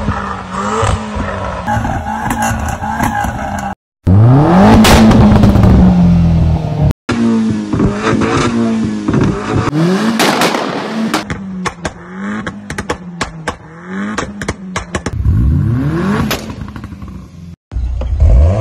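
Vauxhall Corsa VXRs with loud modified exhausts revved hard, in several short clips cut together. The revs rise and fall, and from about ten to fifteen seconds in a rapid string of sharp pops and bangs crackles from the exhaust as the revs drop.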